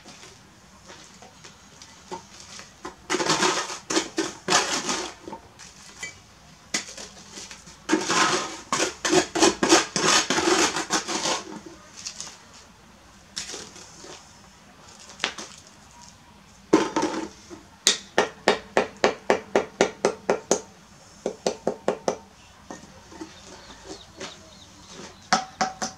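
Bricklayer's steel trowel scraping and knocking on mortar and brick while a brick wall is laid: bouts of clattering scrapes, then a run of quick sharp taps, about four a second, as a brick is tapped down into its mortar bed.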